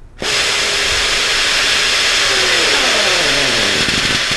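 Enerpac PTW-series pneumatic torque wrench running up a nut: its air motor starts abruptly with a loud rushing hiss and whine, and the whine drops steadily in pitch over the last two seconds as the tool loads up toward its set torque.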